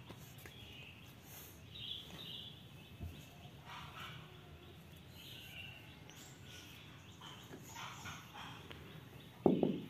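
Faint outdoor background with scattered short, high, distant animal calls.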